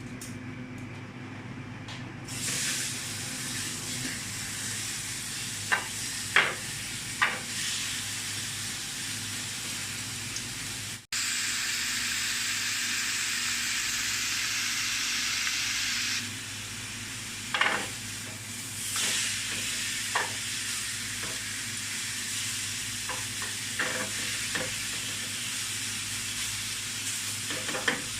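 Beef sizzling as it fries in a hot pan, a steady hiss broken by a few sharp clicks, louder for a few seconds after a brief cut partway through.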